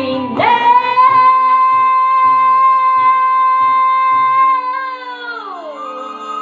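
A woman singing one long high note, held at a steady pitch for about four and a half seconds and then gliding down, over backing music with a steady beat.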